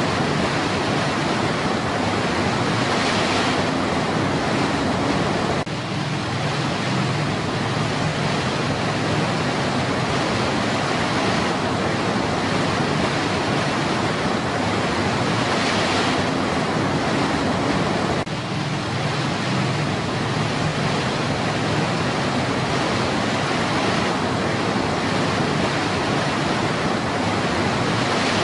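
River rapids rushing steadily over rock ledges: a continuous, even roar of white water, with two brief dips in level.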